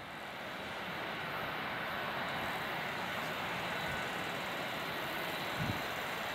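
Airbus A380 jet engines running, a steady rushing noise that fades in over the first second, with one brief low thump near the end.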